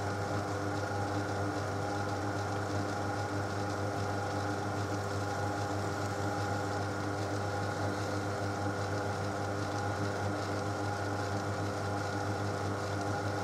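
Myford lathe running steadily, its spindle turning an edge finder: an even motor hum with no change in pitch or level.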